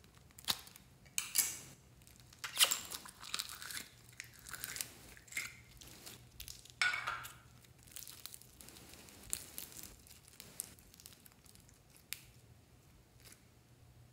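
Foam-bead floam being squeezed out of its clear plastic pack and kneaded by hand: irregular crinkling and crackling, loudest about two and a half and seven seconds in, thinning out near the end.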